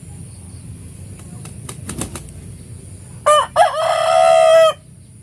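A rooster crowing once, about three seconds in: a short opening note, a brief break, then a long held final note that cuts off sharply. A few short clicks come before it.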